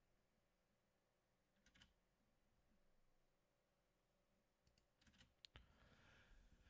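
Near silence, broken by a few faint clicks: a pair about two seconds in and a small cluster near the end, followed by a faint rustle.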